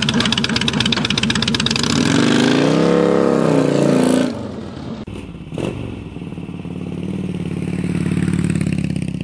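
2008 Harley-Davidson Heritage Softail Classic's Twin Cam 96 V-twin running through Vance & Hines aftermarket pipes with a loud, rapid firing beat. The revs rise and fall about two seconds in, drop off sharply a little after four seconds, then build up again and ease off near the end.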